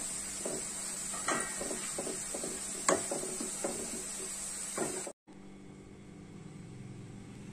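Sliced onions deep-frying in hot oil in a kadai: a steady sizzle, with a wooden spatula clicking against the pan a few times as they are stirred. The sizzle cuts off suddenly about five seconds in, leaving a quieter low hum.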